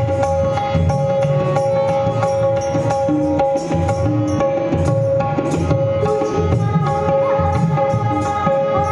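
Tabla playing a steady rhythm under long, steady held notes, an instrumental passage of Indian devotional or light classical music.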